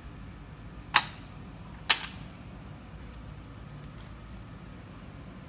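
Break-barrel air rifle being cocked: two sharp metallic clicks about a second apart. They are followed by faint small ticks and rattles as airgun pellets are picked from a tin.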